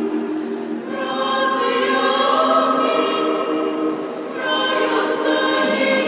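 Small mixed choir of men's and women's voices singing a cappella in long held chords, with a short dip between phrases about four seconds in.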